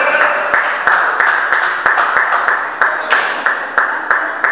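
Spectators clapping together in a steady rhythm, about three claps a second.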